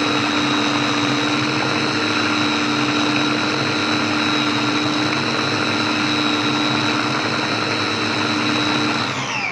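Electric blender running steadily at full speed, churning a thick mix of ground sesame, oil and flour into tahini. Near the end it is switched off and its whine falls in pitch as the motor spins down.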